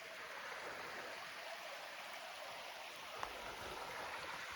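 Faint, steady rush of creek water flowing over rocks, with a light tick or two.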